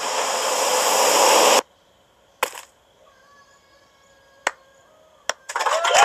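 Cartoon soundtrack: a loud rushing noise that swells and then cuts off abruptly about a second and a half in, followed by near silence with a few faint clicks. Loud voices start near the end.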